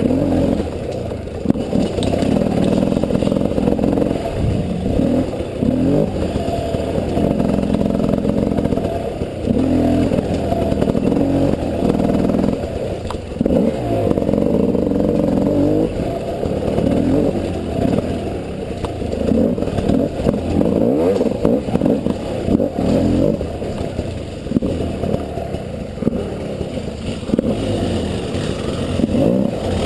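300cc two-stroke enduro motorcycle engine revving up and down over and over as the bike is ridden over rough trail, with scattered clatter and scrapes from the bike.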